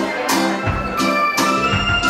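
Waltz music playing, with a steady three-beat pulse: a low bass note on each downbeat followed by lighter chords.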